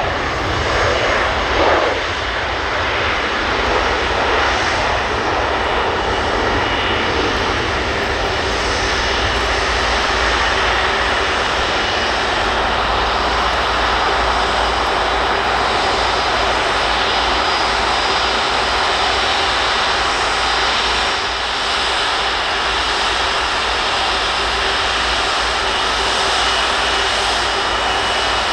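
Airbus A330 twin-engine jet airliner's engines running steadily: a loud, even rush of jet noise with a faint high whine on top.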